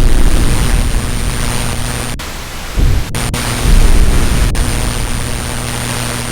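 Loud, steady static hiss over a low electrical hum and a thin high whine, broken by deep rumbling thumps at the start, around three and four seconds in, and again at the end.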